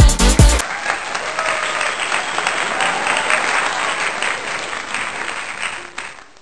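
Crowd applause sound effect, a dense even clapping that fades out toward the end. Electronic background music cuts off about half a second in, just before the applause.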